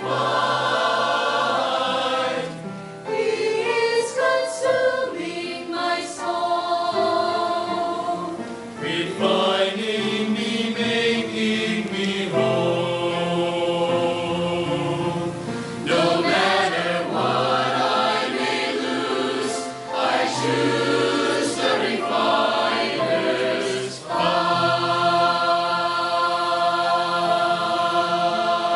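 Mixed church choir singing a slow worship song in harmony, with piano accompaniment, in long phrases with brief breaths between them.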